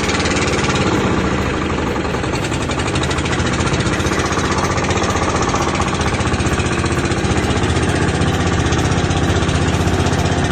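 Small inboard boat engine running steadily close by, with a rapid, even pulse.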